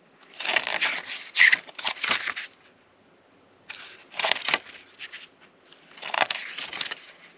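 Paper pages of a glossy booklet being turned by hand, a few quick rustling turns with short pauses between them.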